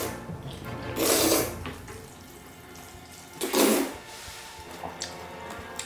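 Loud slurping of thick jjajangmyeon noodles in black bean sauce, twice: once about a second in and again about three and a half seconds in.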